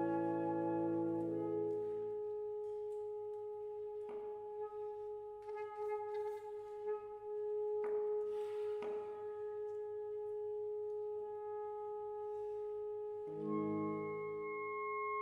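Saxophone quartet (soprano, alto, tenor and baritone saxophones) playing a slow passage: a full chord dies away in the first two seconds, leaving one long held note with a few short, soft noisy sounds over it. About 13 seconds in a low chord comes back in briefly under the held note.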